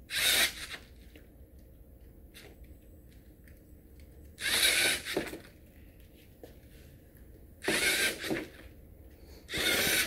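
LEGO Mindstorms NXT servo motors whirring in four short bursts, driving the robot car's wheels and claw gripper.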